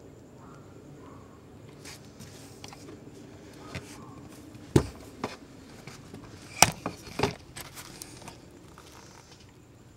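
Handling noise: a few sharp knocks and clicks, the loudest about five and six and a half seconds in, over a faint steady hiss.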